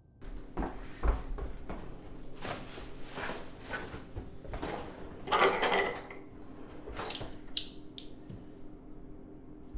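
Kitchen drawers being pulled open and pushed shut while their contents are rummaged through: a run of knocks, rattles and clatter, loudest about five and a half seconds in. A steady low hum runs underneath.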